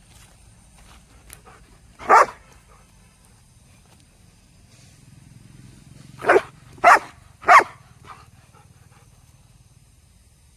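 A dog barking: one loud bark, then about four seconds later three barks in quick succession, about half a second apart.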